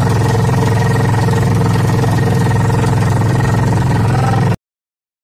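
Small motorized outrigger boat's engine running at a steady speed, an even drone with a steady whine above it. The sound cuts off abruptly about four and a half seconds in.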